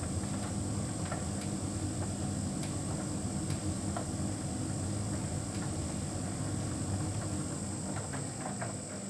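Hotpoint heat pump tumble dryer running: a steady low machine hum with a thin high whine above it, and scattered light clicks as the drum turns.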